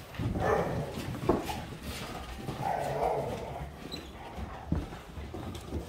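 A dog giving two short, soft vocal sounds, about half a second in and again around three seconds in, with a few light knocks in between.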